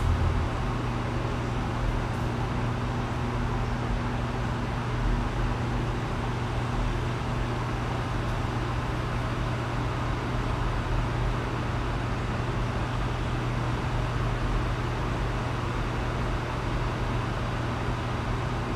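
Steady rushing background noise with an even low hum underneath, unchanging throughout.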